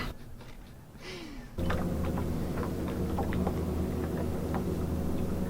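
A steady, low mechanical hum of constant pitch, with faint ticking over it, starting abruptly about a second and a half in after a near-quiet start.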